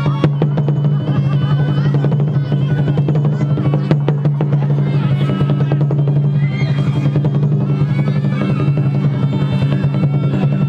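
Pinpeat ensemble music accompanying a Khmer shadow puppet play: fast, dense drum and percussion strokes with a winding melodic line above, over a steady low hum.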